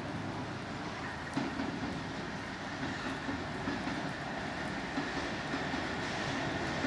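A Class 66 diesel freight locomotive, with its two-stroke V12 engine, approaches at the head of a freight train. Its engine and wheel noise grow slowly louder, with a faint steady high tone and a few sharp clicks from the wheels on the rails.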